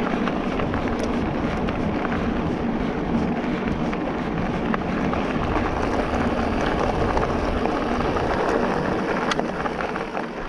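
Specialized Turbo Levo Comp e-mountain bike being ridden along a rough track: tyres rolling over the surface with scattered small clicks, under steady wind noise on the microphone.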